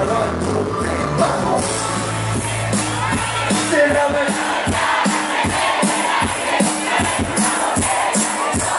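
Live cuarteto band music, amplified through a PA, with a large crowd singing along. About four seconds in the bass drops out, leaving a steady beat of drums and hand percussion under the voices.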